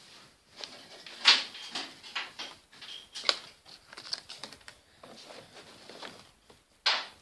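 Irregular clicks, taps and rustles from hands handling small toy pieces and packaging close to the microphone. The sharpest click comes about a second in, with others around three seconds in and near the end.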